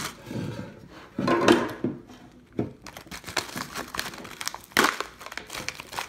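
Plastic ration cookie wrapper crinkling and crackling irregularly as it is pulled open by hand.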